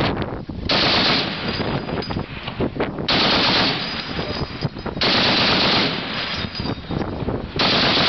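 M2 .50-calibre heavy machine gun firing four short bursts of automatic fire, each under a second long, about two seconds apart.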